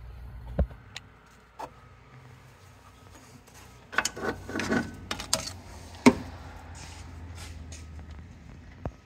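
Scattered knocks, clicks and rubbing from a phone camera being handled and brushed against parts under a car, over a low steady hum. A cluster of knocks comes about four seconds in, and a single sharp click about six seconds in is the loudest.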